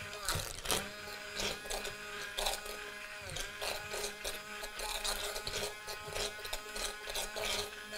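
Breville immersion blender running steadily in a stainless saucepan, blending thickened strawberry sauce, a steady motor hum with scattered clicks and knocks.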